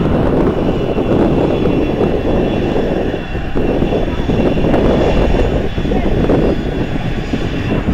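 Jet airliner engines running loud and steady, a dense low noise with thin high whining tones held above it.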